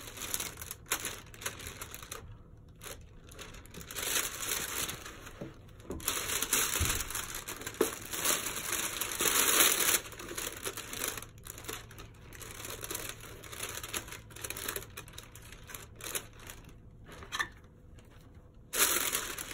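Silver metallic foil wrapping paper crinkling and rustling in a cardboard shoebox as sneakers are lifted out. It comes in irregular bouts with short quiet pauses, loudest about ten seconds in.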